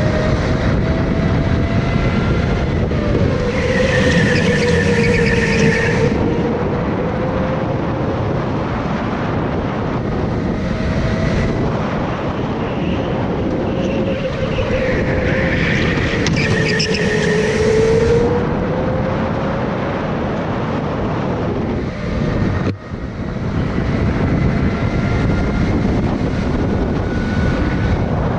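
Go-kart engine running hard, its pitch dipping and climbing again as the kart brakes into corners and accelerates out. Twice a higher-pitched squeal joins it for about two seconds, and the engine note drops briefly near the end.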